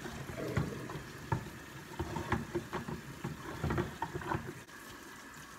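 Dishes being washed by hand at a kitchen sink: a plastic blender jar and other dishware knocking and clattering irregularly, with water splashing, the clatter thinning out near the end.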